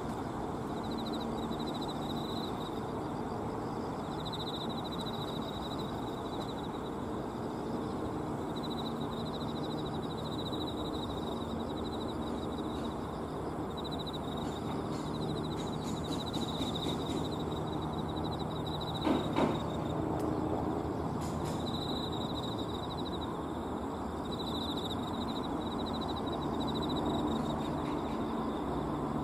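Steady distant traffic noise from the road and Astram Line bridges across the river, with a high thin trilling that comes and goes. There is a brief knock about nineteen seconds in.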